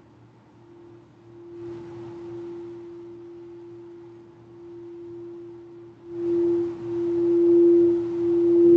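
Singing bowl sung by circling a mallet around its rim: one steady, even tone that swells louder about a second and a half in and much louder about six seconds in, with a faint rubbing hiss from the mallet as it swells.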